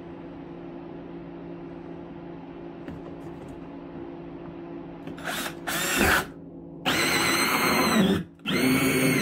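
Cordless drill spinning a 2-inch hole saw through a plastic tote lid in three loud bursts, starting about five seconds in. The motor's whine rises as each burst spins up. Before the drilling there is a steady low hum.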